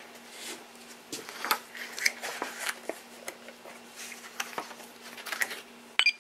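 Handling noise from a hand-held RC transmitter: scattered clicks, taps and rustles as it is picked up and handled, ending in one sharper click. A steady low hum sits underneath.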